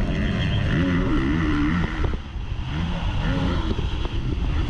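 Motocross bike engine heard close up from the bike itself, revving hard with its pitch rising and falling several times as the rider works the throttle and gears, with a short easing off about two seconds in.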